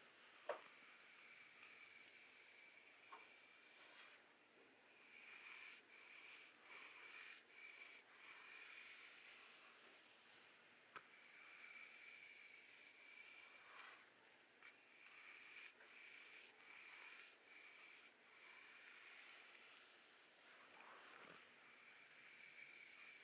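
Near silence: a faint steady hiss with soft, repeated swishing strokes of hands or a tool moving over skin, cloth or hair during a massage.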